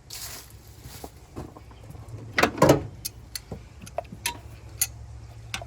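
Scattered clicks and taps of hand tools against metal while working at a heater hose clamp in an engine bay, with a louder scraping burst about two and a half seconds in.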